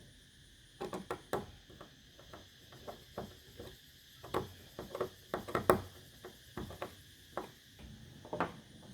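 Irregular light knocks and clicks, a dozen or more at uneven spacing, beginning about a second in; the loudest comes about five and a half seconds in.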